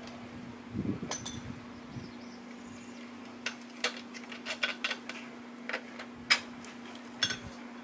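Scattered metal clicks and clinks from a Rockwell jaw stand's steel clamp parts, bolt and nut being handled and worked apart, with a quick run of clicks in the middle and the sharpest clink about six seconds in, over a steady low hum.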